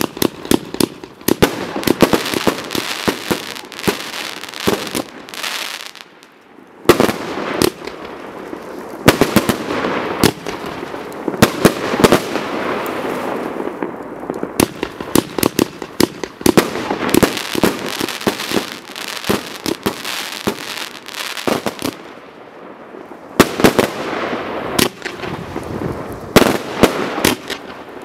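Total FX Caged Tiger Pro firework barrage cake firing: a rapid string of shots and bursts close together, with two short lulls, about six seconds in and about twenty-two seconds in.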